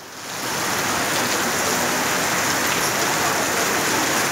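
Heavy monsoon rain pouring steadily onto a wet paved street, a dense even hiss that rises to full level within the first half second.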